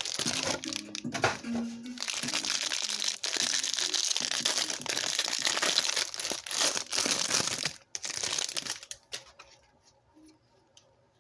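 Cardboard hanger box and plastic wrapping being torn open and crinkled by hand, a dense crackling that stops about nine seconds in, leaving a few faint ticks.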